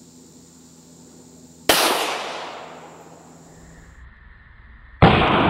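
Two shots from a Glock 40 10mm pistol. The first is a sharp report about a second and a half in that echoes away over a second or so. The second, louder one comes near the end and rings on.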